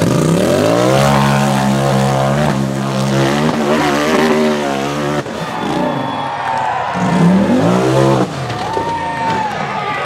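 RZR buggy's engine revving hard at full throttle, climbing sharply in pitch and held high. It eases off about five seconds in, revs up again, then drops off suddenly about eight seconds in.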